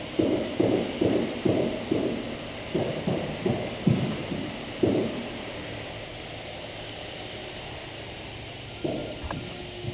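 Dull thumps, about two a second for some five seconds, then two more near the end, over a steady high whine.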